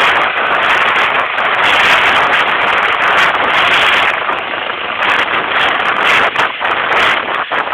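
Trauma helicopter running close by: a loud, steady rush of rotor and turbine noise, wavering briefly a few times near the end.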